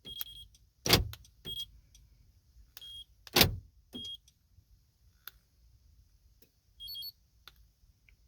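2015 Honda CR-V cabin: three loud clunks a second or two apart, with short high electronic beeps between them and a brief double chirp near the end. The car is refusing to start from the push button.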